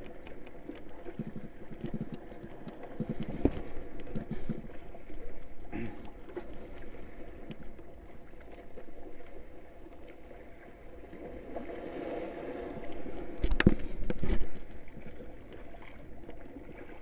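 Water lapping and sloshing against a fishing paddleboard at sea, with a few knocks on the board, the loudest cluster a little past the middle.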